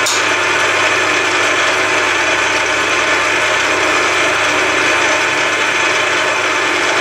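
Milling machine running steadily with an angle cutter taking a cut in a metal part as the table feeds, a continuous mix of motor whine and cutting noise.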